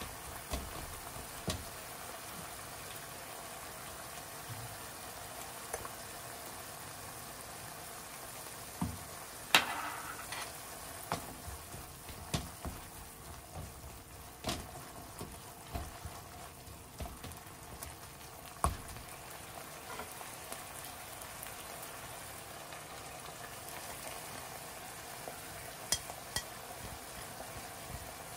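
Minced chicken frying in a nonstick pan with a steady sizzle, stirred with a plastic spatula that knocks and scrapes against the pan now and then. The loudest knocks come about a third and two thirds of the way in.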